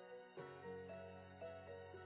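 Quiet background music: gentle, evenly paced notes over a held chord that changes shortly after the start, with light high tinkles.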